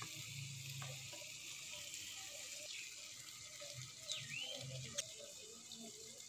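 Faint background with a few soft clicks of a wooden spoon as cooked mutton pieces are served onto a plate, and a short chirp about four seconds in.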